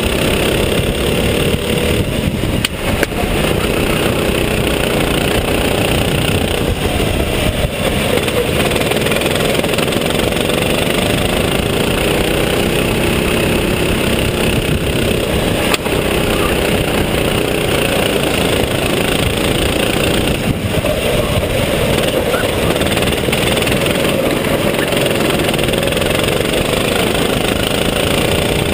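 Kart engine running hard under racing load, its pitch repeatedly rising as it accelerates and falling as the driver slows for corners.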